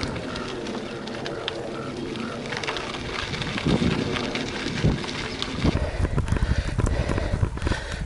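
Trek 920 gravel bike riding over a dirt trail: tyre noise on the dirt with wind buffeting the helmet-mounted camera's microphone. It gets louder and rougher about two-thirds of the way in, with a low rumble and irregular knocks and rattles from the bike on the rougher ground.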